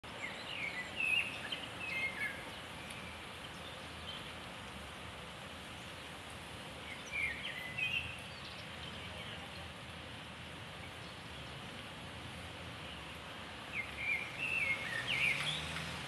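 Common blackbird singing in three short bursts of quick chirping, warbling notes: one at the start, one about seven seconds in, and one near the end, over a steady outdoor hiss.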